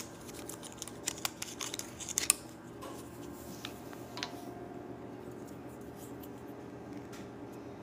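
Small sharp plastic clicks and ticks from handling the tiny screw-top jar of miniature pumpkin pie filling and its lid. They are bunched in the first two seconds or so, with a couple more around the fourth second, then only a faint steady hum.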